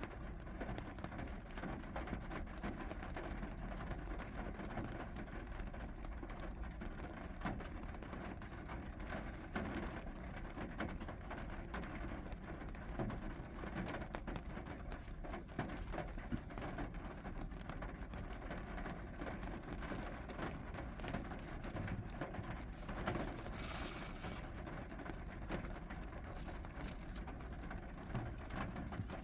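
Steady rain falling, with scattered drops ticking on surfaces and a brief, louder hiss near the end.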